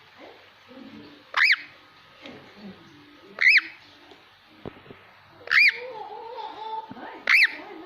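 Ringneck parrot giving four loud, short calls about two seconds apart, each rising then falling in pitch, with quieter low sounds between them.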